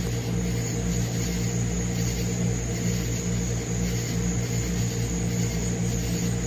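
A steady low hum with a constant high-pitched insect chorus above it, like night crickets.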